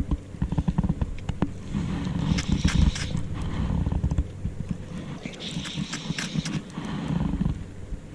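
Fast, swollen river water rushing and splashing close by, heard as an uneven low rumble with irregular splashy crackles that come in patches.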